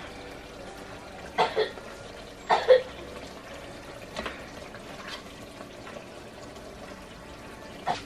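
Metal spoon knocking and scraping against an enamelled pot as thick meat stew is stirred and scooped out: a handful of separate clinks, the loudest about two and a half seconds in, with wet sloshing of the sauce.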